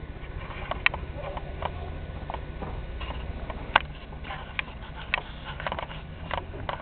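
Off-road SUV engine running with a steady low rumble as it crawls over rocks, with scattered sharp clicks over it.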